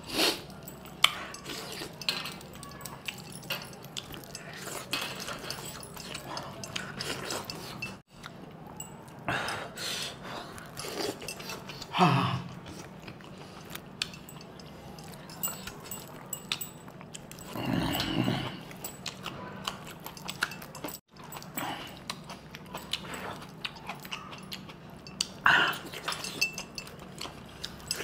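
Close eating sounds of mutton chaap being eaten by hand: wet chewing and lip smacking, with scattered small clicks and clinks against a steel bowl. A few louder short mouth sounds come about twelve, eighteen and twenty-five seconds in.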